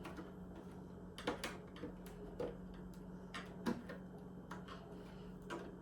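Small plastic clicks and taps as the programmer's reset/interrupt button piece is pried out of the side of a 1984 Macintosh's plastic case, about eight scattered clicks at irregular intervals.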